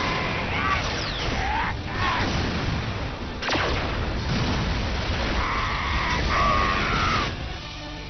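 Cartoon battle sound effects for a finishing Thunder Punch: a dense rush of noise with high, held cries near the start and again about two-thirds through, and a single sharp crack about three and a half seconds in.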